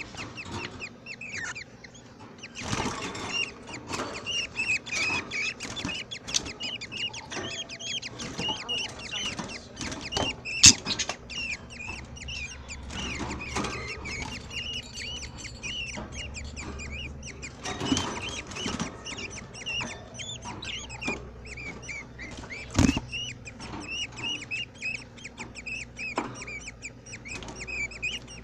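Budgerigars chirping and chattering, with many quick, short, high chirps in a steady run. A few sharp knocks stand out, the loudest about a third of the way in and again past the three-quarter mark.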